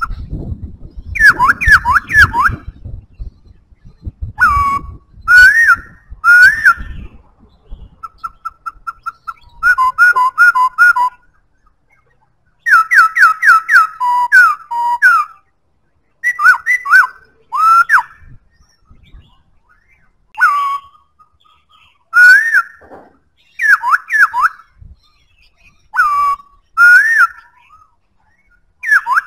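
Black-throated laughingthrush singing loud, clear whistled phrases: short runs of fast rising and falling notes, repeated every second or two with short pauses between them. About a third of the way in it gives a quick string of even, same-pitched notes.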